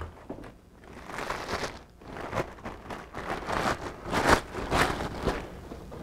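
Car parts being handled on a workbench: irregular rustling and crinkling of plastic packaging, with a few light knocks as metal parts are set down and picked up.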